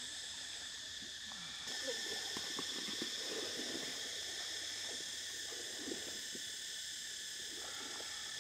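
Steady chorus of insects, several high buzzing tones held throughout, with faint scattered ticks and scrapes as a knife cuts into the roasted skin of a spit-roasted duck.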